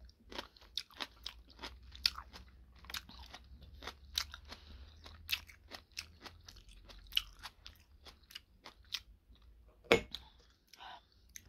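A person chewing homemade kimchi close to the microphone: many irregular crunches of the fermented cabbage between the teeth, with one louder, sharper click about ten seconds in as the fork meets the bowl.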